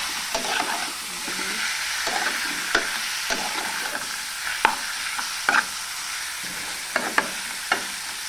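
Food frying in a pan with a steady sizzle, while a utensil stirs it and clicks against the pan now and then.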